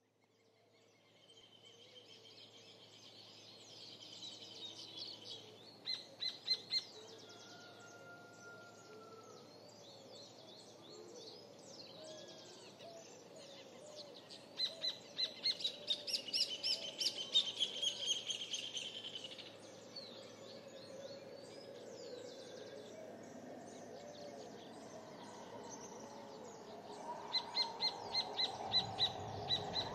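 Birds singing and calling in a chorus that fades in from silence at the start. Runs of rapid, high chirps stand out three times over a softer layer of lower calls.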